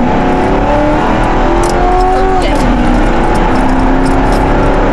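Police patrol car's engine accelerating hard from inside the cabin, its pitch climbing, then dropping at an upshift about two and a half seconds in before climbing more gently, over a constant road and wind rumble.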